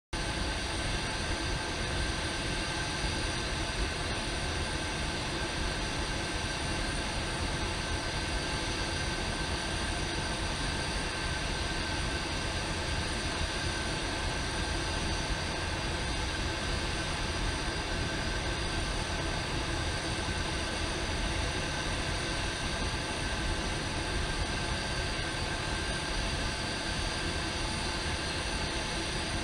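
Steady machine drone: an even rushing noise with several constant high-pitched whines above it, unchanging throughout.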